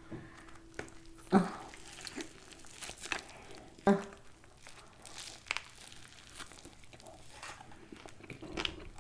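Paper food wrappers and packaging crinkling as food is handled, with scattered short crackles. The two sharpest come about one and a half and four seconds in.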